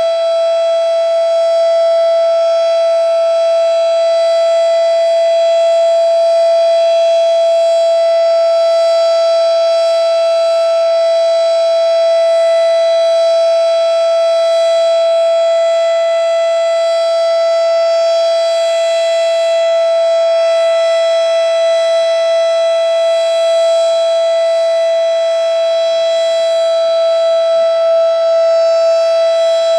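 Federal Signal Model 7 mechanical outdoor warning siren sounding its steady alert at full speed: one loud, unwavering pitch with a rich stack of overtones.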